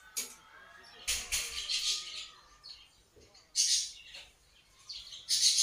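Audience cheering and screaming with shrill cries, in several short bursts, the loudest near the end.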